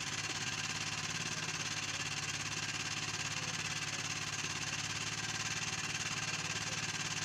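A small engine on the fishing boat running steadily at constant speed: an even, unbroken hum.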